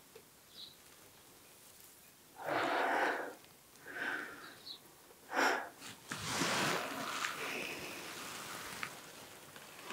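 A woman breathing hard in a few loud, rough breaths and gasps, starting about two seconds in, the last one longest; she is frightened, her heart racing.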